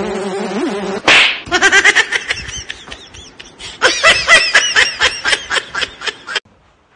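About a second of music, then a dubbed-in laughter sound effect: high-pitched giggling in quick repeated bursts that cuts off abruptly about six seconds in.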